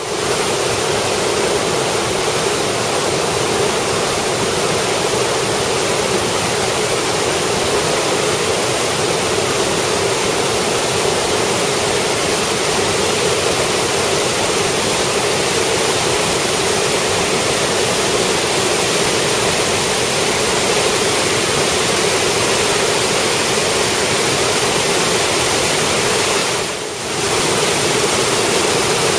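Creek in flood after a heavy rainfall, brown water rushing and churning over rocks in a steady loud rush, dipping briefly near the end.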